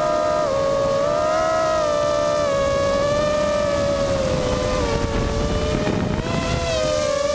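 Brushless motors and 5-inch propellers of an FPV racing quadcopter (EMAX RS2205 2600kv motors, GemFan 5x3x2 props) whining. The pitch shifts with throttle through a power loop: it rises about a second and a half in, sags about five seconds in, and climbs back near the end.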